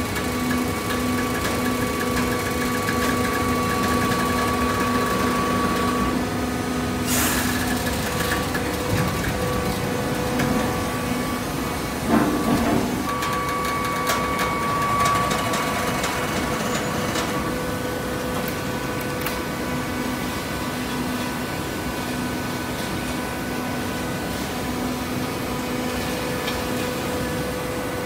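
Horizontal hydraulic baler running, its motor and hydraulic pump giving a steady hum, with a sharp clank about seven seconds in and a short knock about twelve seconds in.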